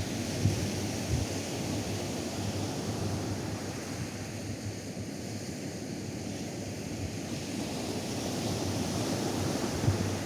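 Atlantic surf washing onto a sandy beach, the hiss of the water rising and falling, with wind gusting against the microphone.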